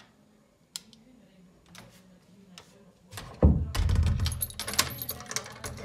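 An interior door being handled and opened: a thud about three seconds in, then the handle and latch rattling and clicking, with a light metallic jingle.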